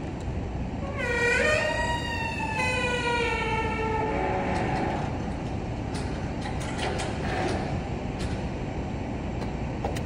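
A vehicle horn sounding once for about three seconds, its pitch sagging slightly as it goes, over a steady low rumble.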